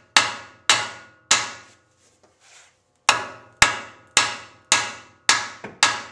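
Hammer blows on the steel spindle of a 1989 Isuzu Trooper's front suspension, struck to shock the upper ball joint's tapered stud loose. There are three sharp, ringing strikes, a pause of about two seconds, then six more at about two a second.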